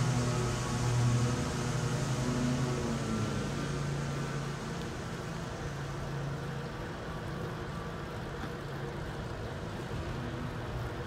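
Steady rushing noise of wind and rolling motion while travelling along a street. Low held tones fade out over the first few seconds.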